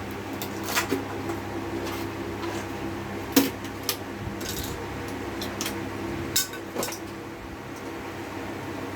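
Scattered clinks and knocks of small hard objects being handled, about eight in all, the loudest about three and a half seconds in, over a steady hum.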